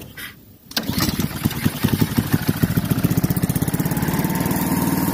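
Small single-cylinder lawn-mower-type engine on a mini buggy starting with the choke off: after a short lull it catches about a second in, fires unevenly for a moment, then settles into a steady, fairly quiet run.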